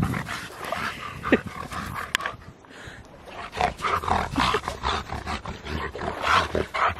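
A shepherd dog digging in sand: a quick run of scrapes as its front paws claw and fling the sand, easing off briefly about two seconds in and then picking up again.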